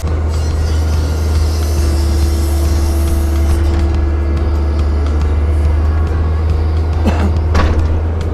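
Cat 305 mini excavator's diesel engine running steadily with a deep, even drone, joined by a couple of short, sharper sounds near the end.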